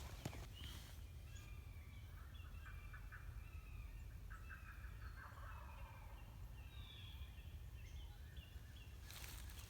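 A wild turkey gobbler gobbling faintly, a rapid rattling call, with a few faint higher calls around it.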